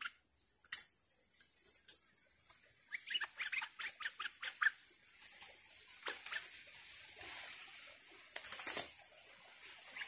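Stripe-throated bulbul calling: runs of quick chattering notes about three seconds in and again around six seconds, with a short burst of sharp clicks near the end.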